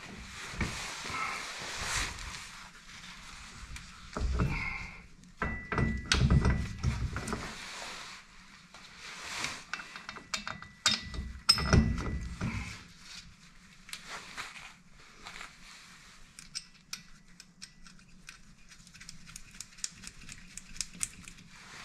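Metal clinks, taps and knocks of a double-cardan rear driveshaft being offered up to the transfer-case output flange, with its bolts and nuts handled and started by hand. A few heavier thuds come as the flanges meet, and there is a quick run of small clicks near the end.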